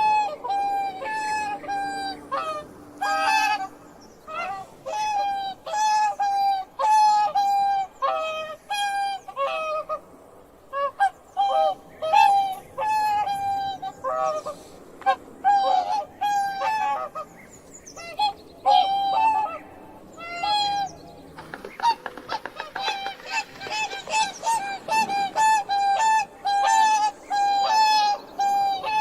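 Swans squawking: a rapid, continuing run of short, nasal calls repeated a few times a second, with a buzzier stretch of calls about three quarters of the way through.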